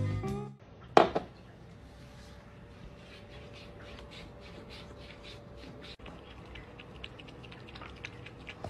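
A cat lapping water from a drinking glass: a run of faint, quick wet laps about three or four a second. Before it, music cuts off in the first half second and a single sharp knock sounds about a second in.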